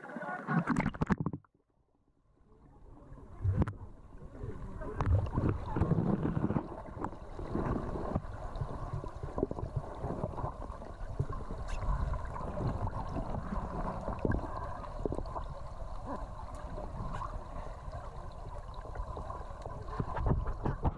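Underwater sound heard through an action camera's waterproof housing: a steady, muffled rumble of water with many scattered clicks and knocks. A second or so in, the sound drops out briefly as the camera goes under, then the rumble builds back.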